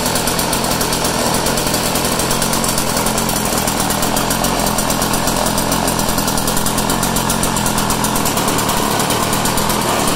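Snapper single-stage snowblower's small gas engine running at a steady speed.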